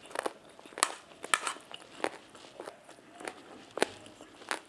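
Close-miked eating sounds: irregular sharp clicks and crunches of chewing and of a metal spoon scraping and tapping against a plate as rice is scooped up.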